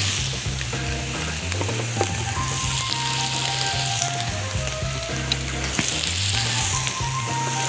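Beef grill burgers sizzling steadily on a hot ribbed grill plate, the hiss swelling and easing every few seconds.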